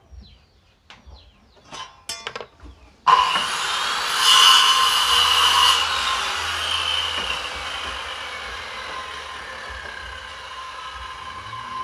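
A few faint clicks and taps, then a machine starts suddenly about three seconds in: a noisy, whining run that is loudest for the next couple of seconds and then fades slowly while still running.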